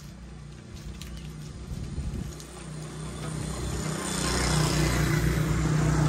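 A motor vehicle's engine running steadily, growing louder as it approaches, with a rising hiss of its passing about four seconds in.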